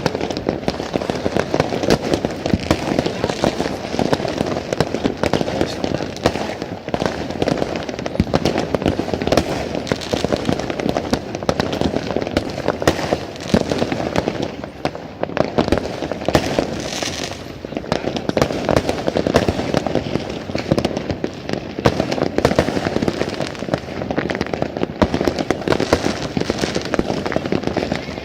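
Many fireworks going off at once: a dense, continuous barrage of bangs, pops and crackles.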